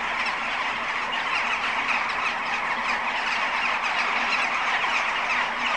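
A massive flock of birds perched in treetops, calling all at once: a steady, dense chatter of countless overlapping chirps.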